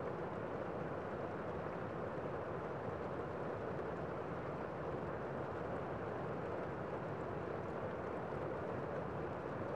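Gentle rain falling on a window: a steady, dull rushing with no separate drop taps standing out.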